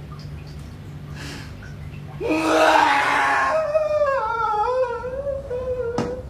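A person's loud anguished cry about two seconds in, trailing into a long wavering moan that slowly falls in pitch, with a sharp click near the end.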